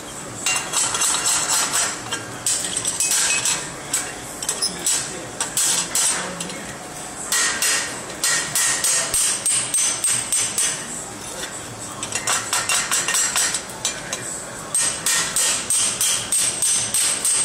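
Hand hammer striking red-hot wrought iron bars on a steel forming jig, in runs of quick ringing blows about four a second with short pauses between the runs.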